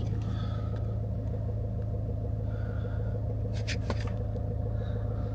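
Land Rover Range Rover Evoque SD4 2.2-litre four-cylinder diesel idling steadily, heard from inside the cabin, running after a starter motor repair. A couple of faint clicks come about three and a half seconds in.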